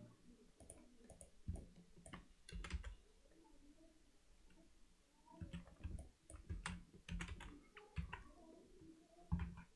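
Faint computer keyboard keystrokes and mouse clicks, coming in short irregular clusters with a quieter stretch in the middle.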